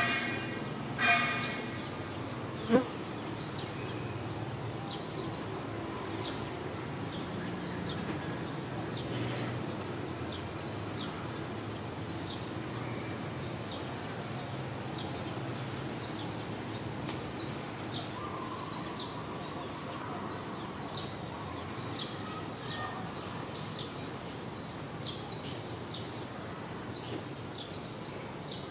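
Insects chirping in many short, irregular bursts over a steady high whine. Near the start come two short pitched calls, and a sharp click about three seconds in.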